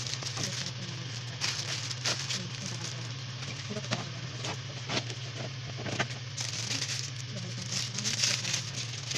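Unpacking noise: plastic wrapping and cardboard packaging rustling and crinkling, with several sharp clicks and taps as the thin metal wire parts of a ring light stand are handled. The crinkling gets denser and louder about six and a half seconds in, over a steady low hum.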